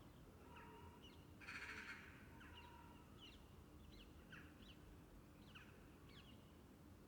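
Quiet room tone of a small room with an open window: a low steady hum, with small birds outside repeating short, quick down-sweeping chirps. About a second and a half in comes one louder, harsh bird call lasting about half a second.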